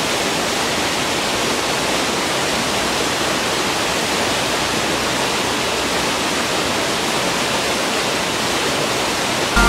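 Steady rush of water flowing over rocks, an even hiss that holds the same level throughout.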